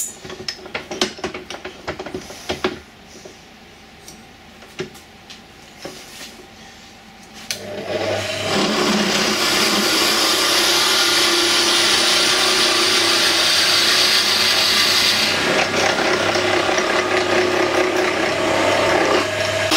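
Scattered clicks and knocks, then about eight seconds in a wood lathe runs steadily while a Morse taper drill bores into the end grain of a spinning wooden blank, with a loud cutting hiss that eases for a few seconds near the end.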